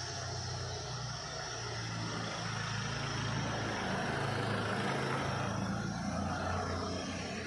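A motor vehicle's engine running steadily with a low hum, swelling a little about four seconds in and then easing off.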